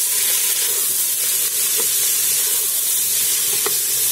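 Mixed vegetables sizzling in hot oil in an open pressure cooker, a steady high hiss, with a few light knocks of a wooden spatula stirring them against the pot.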